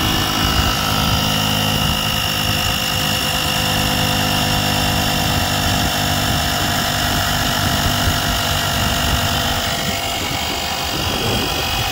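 Built-in air compressor of a CAT 1200A portable power station running steadily, pumping up a car tire toward a 40 psi setting.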